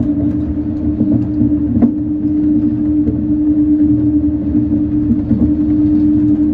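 Shonan Monorail 5600-series suspended monorail car running at steady speed, heard from the cab: a steady motor hum over a low rumble, with a few faint clicks.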